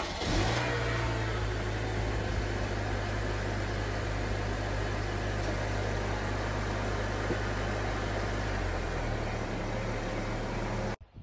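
Car engine catching with a brief rev, then running at a steady idle after standing unused for about two weeks. Near the end the idle settles lower, and the sound cuts off suddenly.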